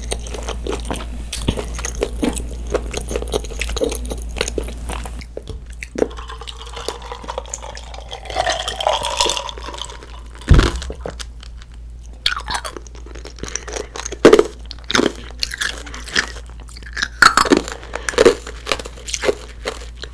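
Close-miked chewing and wet mouth sounds of a child eating cream pasta, with one sharp knock about halfway through and louder separate chewing smacks in the second half.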